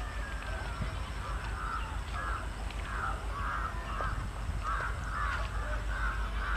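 Crows cawing, a string of caws one after another that grows busier in the second half, over a steady low rumble.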